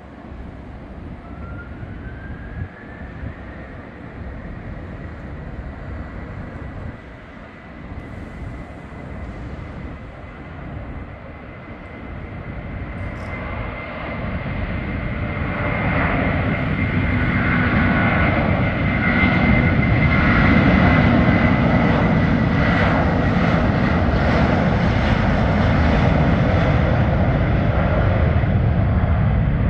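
Airbus A330-300's twin Pratt & Whitney PW4000 turbofans, first running at low thrust with a high whine that rises in pitch and then holds, then spooling up to takeoff thrust about halfway through, growing louder over several seconds and staying loud as the airliner accelerates down the runway on its takeoff roll.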